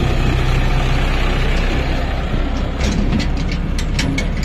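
John Deere 5050D tractor's three-cylinder diesel engine running as it drives past close by towing a trolley, growing fainter about halfway through as it pulls away. From about three seconds in, the steel trolley rattles and clanks over the rough ground.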